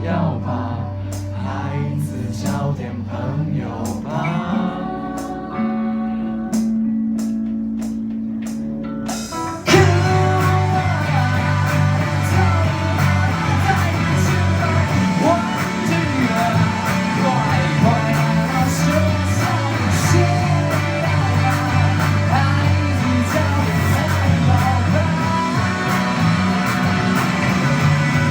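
Live rock band playing a song with guitars, bass, drums and singing. A sparser passage with a held bass note gives way about ten seconds in to the full band coming in loud and staying dense.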